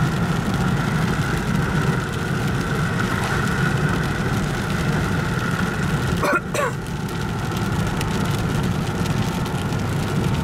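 Steady hum and rush of a car on the move, engine, tyre and wind noise heard from inside the cabin.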